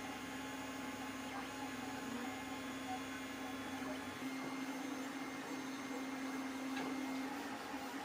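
A LulzBot 3D printer running a print: a steady hum from its motors and fans over a light hiss, easing slightly near the end.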